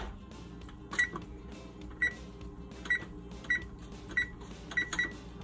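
Kenmore electric oven's keypad beeping with each press of the temperature button as the bake temperature is set: about seven short high beeps, roughly half a second to a second apart.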